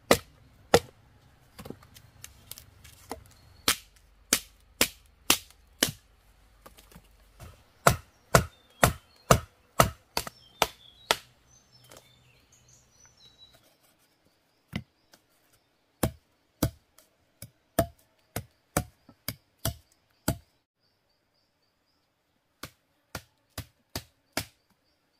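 Repeated sharp chopping strikes, about two a second, in runs with short pauses between them. Faint birds or insects chirp behind them from about halfway through.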